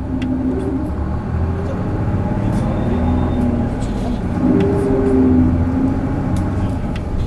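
Isuzu PJ-LV234L (Erga) city bus's six-cylinder diesel engine heard from inside the bus, worked hard under acceleration. The engine note climbs and falls twice, loudest about five seconds in.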